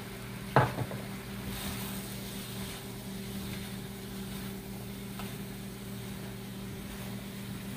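A silicone spatula stirring cauliflower fried rice in a pan, soft scraping and tossing, with a short sharp knock about half a second in, over a steady low hum.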